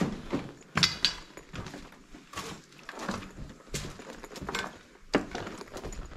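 Footsteps crunching and scraping over debris of broken plaster, rubble and loose wood on a corridor floor, with irregular cracks and crunches, loudest about a second in and again near the end.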